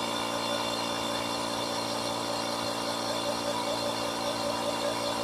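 Portable air compressor running steadily while inflating a freshly mounted tire to seat the bead.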